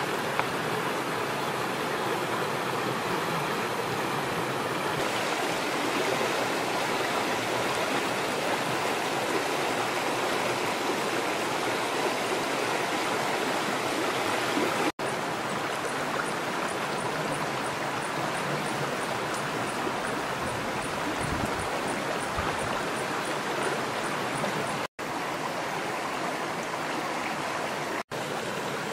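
Steady rush of a shallow rocky stream tumbling over stones and small cascades, cutting out for an instant three times.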